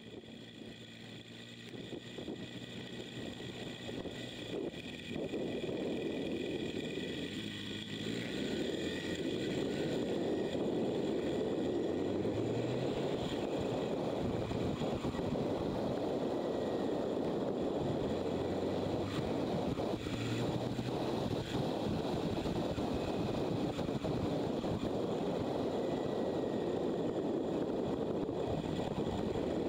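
Motorcycle engine running on the move, mixed with wind rushing over the bike-mounted microphone. It grows louder over the first ten seconds and then holds steady, with the engine pitch climbing briefly a few times.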